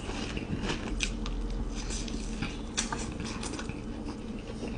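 Close-miked chewing of spicy hot chips dipped in jalapeño cheese sauce, with irregular short crunches.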